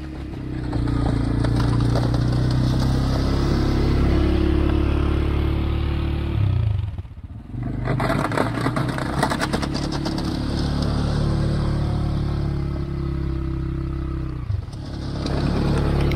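CFMoto CForce 520 ATV's single-cylinder engine running under load while snowplowing, rising and falling with the throttle. Its note dips sharply about halfway through and is followed by a couple of seconds of scraping and clattering, then the engine picks up again near the end.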